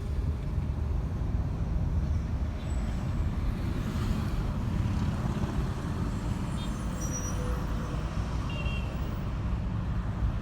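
City street traffic, dominated by the steady low rumble of a heavy vehicle's engine close by.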